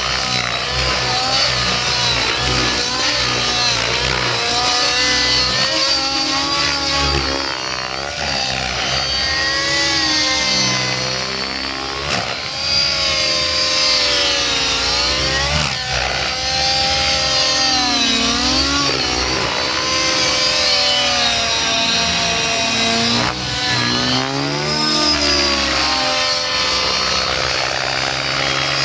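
Nitro engine and rotor blades of a large radio-controlled helicopter flying 3D aerobatics. The pitch keeps rising and falling as the engine loads and the helicopter sweeps past.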